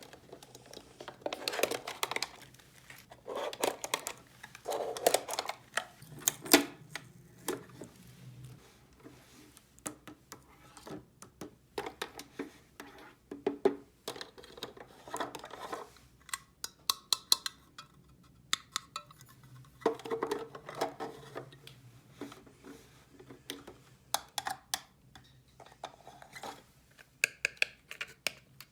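Small plastic toy pieces being handled and set down, giving irregular clicks, taps and light clatters, some with a short ringing note.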